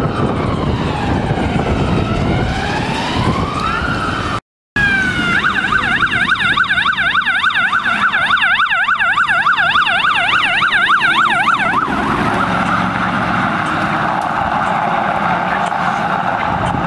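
Police car electronic siren, first a slow rising and falling wail, then after a brief cut a fast yelp that stops abruptly about 12 seconds in. Steady street traffic noise follows.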